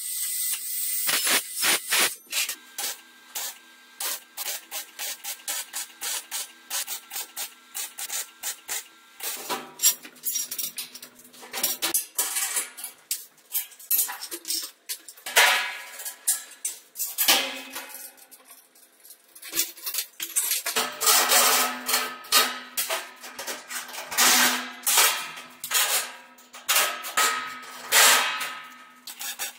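Workshop tool work on sheet metal and a metal frame: a string of clicks, knocks and scrapes, with several short louder stretches of power-tool noise.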